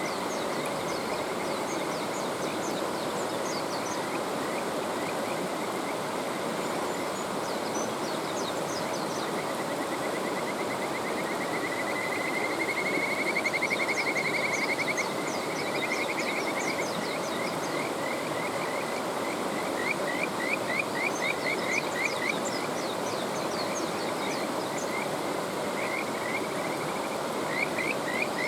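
Kajika frogs (Buergeria buergeri) calling over a steady rushing mountain stream. Their high, clear notes come in runs and trills. One long fast trill swells louder about halfway through, and quick runs of separate notes come later and near the end.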